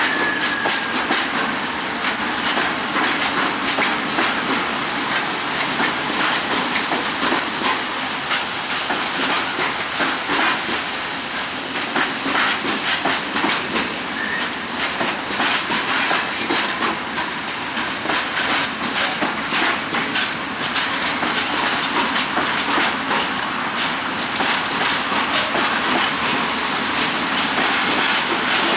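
Rail wagons of a train hauled by a TEM2 diesel shunter rolling along the track, their wheels clicking and clattering over the rails. A thin wheel squeal fades out about a second and a half in.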